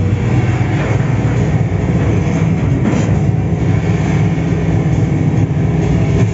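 Loud theatre speakers playing a ride film's soundtrack: a steady, dense vehicle rumble.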